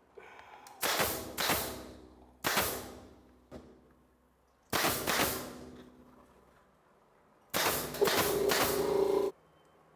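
Nail gun firing nails into wooden furring strips: several sharp shots spread over the first five seconds, then a longer run of rapid firing near the end.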